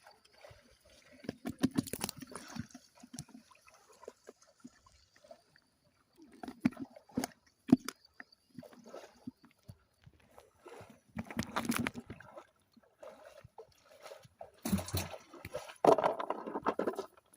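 Hands sloshing and splashing through mud and shallow water in irregular bursts, with sharp wet slaps, as someone gropes for fish by hand.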